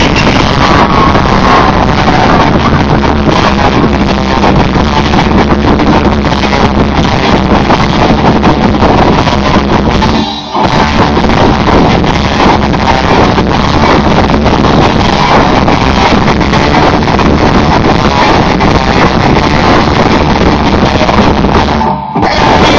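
Rock band playing live at full volume, with guitars and drums, the song just counted in. The sound drops briefly twice, about ten seconds in and near the end.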